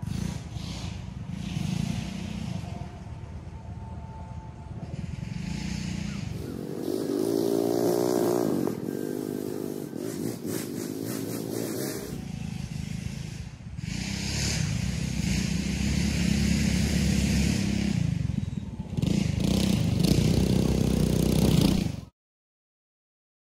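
Two small single-cylinder Predator 212 hemi engines on a mini trike and a mini bike racing around a dirt track. Their note rises and falls as the riders rev and pass, and it is loudest shortly before the sound cuts out completely for about a second near the end.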